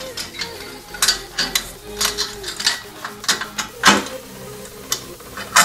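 Metal clinks, taps and scrapes of motorcycle exhaust heat shields and their clamps being handled and fitted onto chrome exhaust pipes, with a sharper clank about four seconds in and another near the end.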